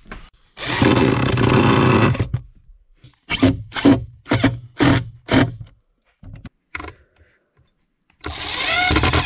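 Cordless driver driving screws into a plywood shelf. One run of about a second and a half near the start, then five short trigger bursts about half a second apart, and another run near the end whose pitch rises as the motor speeds up.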